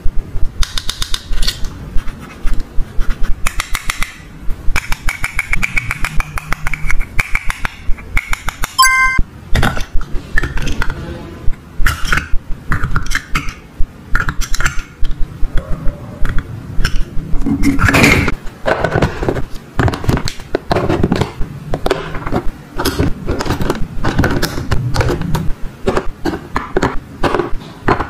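Hard plastic toy pieces clicking, tapping and scraping as they are handled and stacked: toy ice-cream scoops and cones set onto a plastic stand. A brief ringing ding about nine seconds in.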